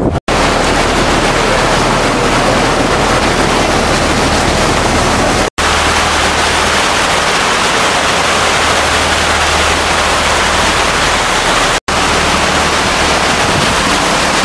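Loud, steady rushing of wind on the microphone and water noise from a boat under way, with a low engine hum underneath. The sound cuts out for an instant three times.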